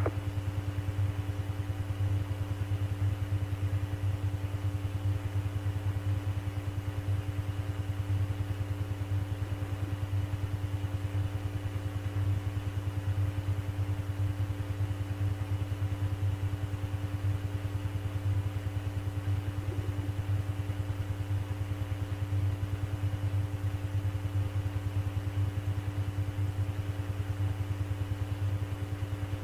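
Steady low hum with a fine fast flutter and several fainter steady tones above it: the background noise of an air traffic control radio-frequency recording between transmissions.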